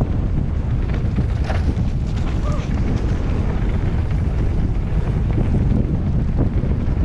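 Steady wind buffeting on the microphone of a riding mountain bike, a loud low rumble, with scattered clicks and rattles of the bike going over rough trail.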